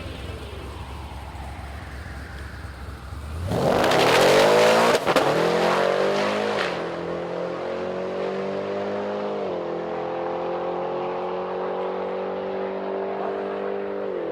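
Supercharged V8 Holden VF Commodore drag car launching about three and a half seconds in, its engine note jumping loud and climbing steeply through the revs, with a shift about a second later. After that comes a quieter, steady engine note that steps down in pitch twice as the automatic upshifts going down the track.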